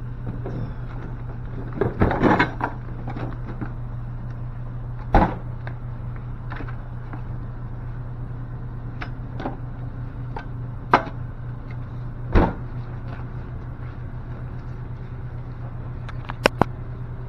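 Fishing gear being handled and moved: scattered knocks and clatters, a cluster about two seconds in, single sharp knocks later on and a quick double click near the end, over a steady low hum.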